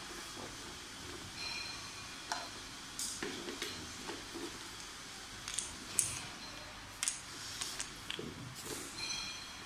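Scattered clicks and knocks of hard plastic parts as an electric pressure washer is handled and assembled, tilted over and its hose fitted; the sharpest clicks come about two, three and six seconds in.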